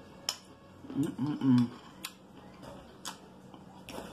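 Metal fork clicking against a ceramic salad bowl four times as salad is eaten. A short voice sound from the eater, with her mouth full, comes about a second in and is the loudest thing heard.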